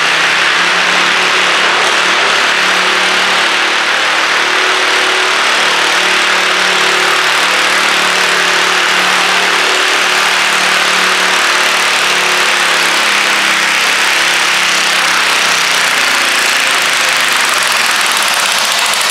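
Modified garden tractor engine running hard at steady high revs, under load as the tractor drags a weighted stoneboat sled; the engine note eases off somewhat near the end.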